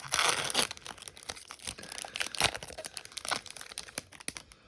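Pokémon booster pack's foil wrapper crinkling and tearing as it is opened: a dense rustle in the first half second, then scattered crinkles and sharp crackles.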